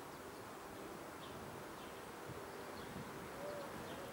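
Outdoor ambience: a steady background hiss and low hum, with a few faint, short, high bird chirps.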